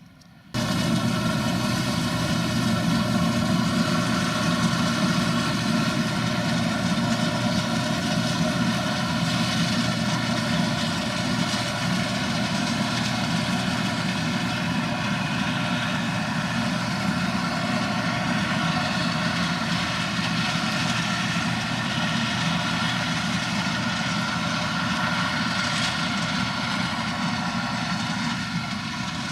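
Heavy farm machine's diesel engine running at a steady speed, loud and unchanging; the sound cuts in abruptly about half a second in.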